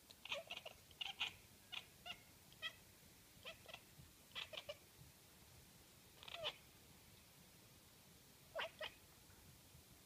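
Domestic cat chattering at birds: short, quick chirps in clusters of two to four, coming in bursts with a longer pause near the end.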